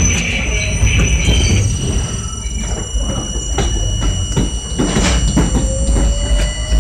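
Interior noise of an R32 subway car moving along elevated track: a steady low rumble with irregular clicks and knocks from the wheels on the rails, and high steady whining tones over it. In the second half a faint tone rises slowly in pitch.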